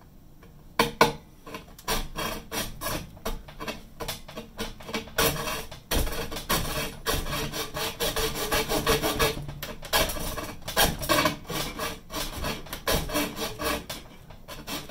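Mini hacksaw cutting through a thin metal rod by hand: repeated back-and-forth sawing strokes, starting about a second in and coming faster and closer together partway through.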